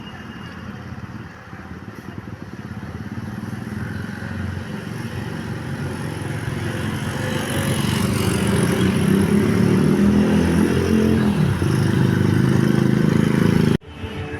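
A bus engine getting steadily louder as the bus approaches and passes close by, its pitch dropping as it goes past. The sound cuts off abruptly near the end.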